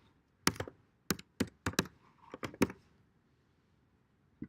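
Typing on a computer keyboard: a quick, uneven run of about nine keystrokes that starts about half a second in and stops before the three-second mark.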